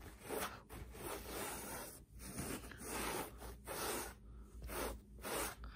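Pet hair removal tool rubbed over sofa upholstery: a series of short, soft, scratchy strokes at an uneven pace.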